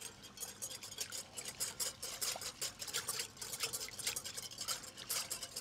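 Wire whisk beating against a glass mixing bowl in quick, steady strokes, emulsifying oil into a curry vinaigrette.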